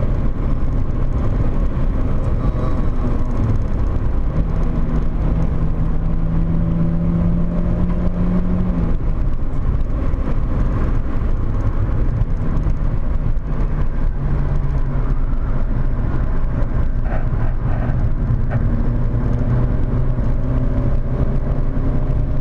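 Volkswagen Corrado 1.8 16V's inline-four engine driven hard, heard from inside the car, with road and wind noise under it. The engine note climbs steadily for several seconds, drops back about nine seconds in, then rises and falls again through the rest of the stretch.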